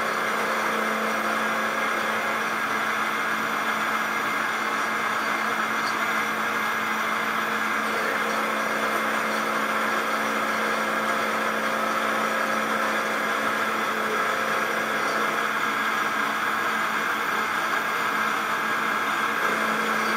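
Milling machine converted to CNC, its spindle running with a steady hum while the end mill cuts metal under a coolant jet.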